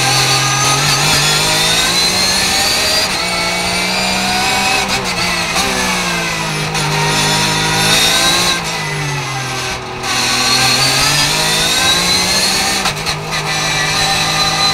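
Porsche 991 GT3 Cup Gen. II's naturally aspirated flat-six heard from inside the cockpit at full racing load, its pitch rising hard under acceleration and falling back several times as it is shifted and braked through the low gears. A short lift in level comes about ten seconds in.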